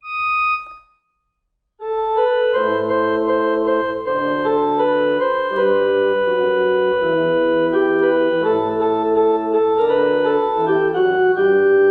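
Casio electronic keyboard on a church-organ voice playing the hymn's introduction, the melody of the chorus's last two lines. It opens with one short note and a pause of about a second, then a continuous line of held chords over single low bass notes.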